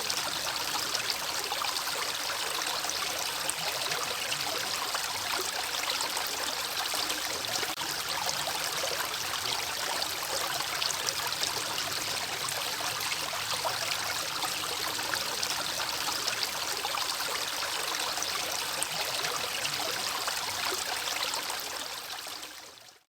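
River water running over stones in a steady, bubbling rush, fading out at the very end.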